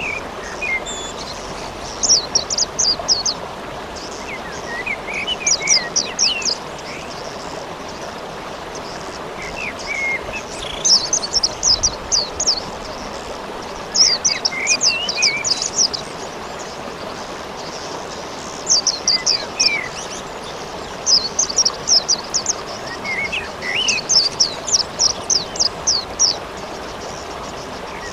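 Steady rain hiss under a small songbird repeating a fast, high chirping phrase about a second long, every three to four seconds, each phrase led in by a few lower chirps.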